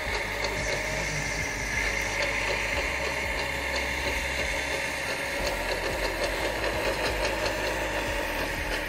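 Radio-controlled model truck running: a steady mechanical hum and whine, with faint light ticking.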